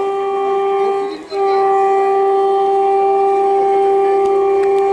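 Horn of an approaching twin WAG-7 electric locomotive freight train: one blast that breaks off about a second in, then a long steady blast held through the rest.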